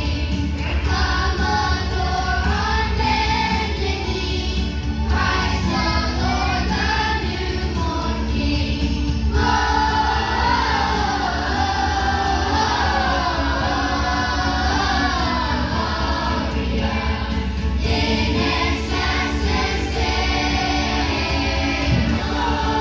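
A group of voices singing together as a choir, with musical accompaniment.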